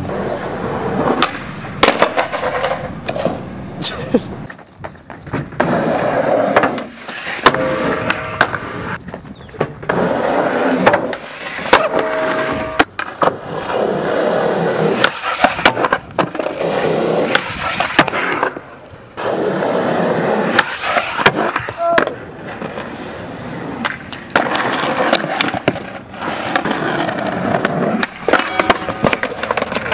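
Skateboards rolling on pavement, with sharp clacks and slaps of boards popping and landing; the sound changes abruptly every few seconds.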